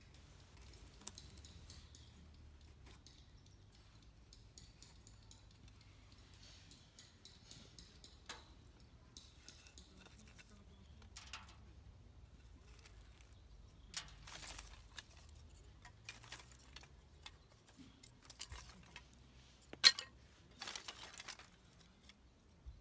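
Light, scattered scrapes and sharp clicks of small handwork with a knife, wood and fire-making materials, with one louder click near the end.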